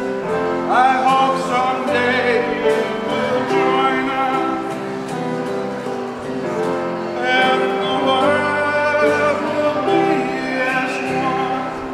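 A holiday song: voices singing over instrumental accompaniment, with sustained, wavering notes.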